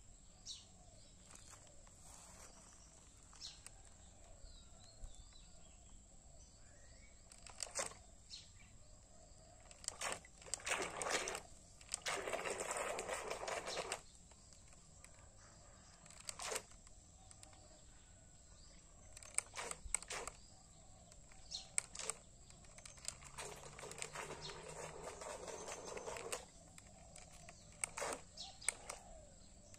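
Quiet outdoor ambience with faint bird chirps and a steady thin high whine, broken by scattered sharp clicks and two hissing rushes of noise lasting a few seconds each, about twelve and twenty-four seconds in.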